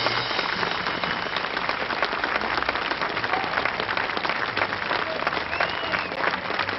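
Audience applauding steadily in a dense patter of clapping, with the band's last chord still dying away at the very start.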